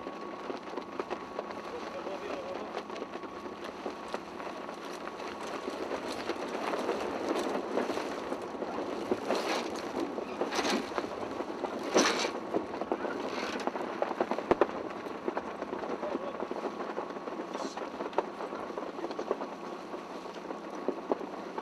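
Mainsail being hoisted on a sailing yacht: a steady rush of wind and water, a few sharp clacks from the sail and rigging around the middle, and faint voices.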